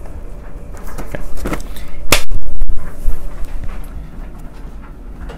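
Cardboard and clear-plastic toy boxes being handled and set down on a stack, giving several sharp knocks and rustles, the loudest about two seconds in.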